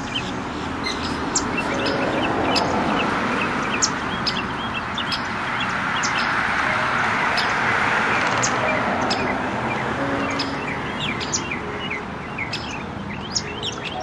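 Many small birds chirping and twittering in quick, scattered high calls over a steady hiss of background noise.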